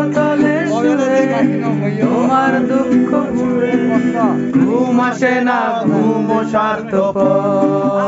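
Acoustic guitar strummed while men sing a Bengali song to it.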